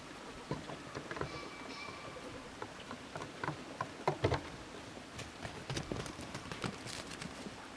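Goats' hooves tapping and scuffing irregularly on the ground as they walk, light scattered steps.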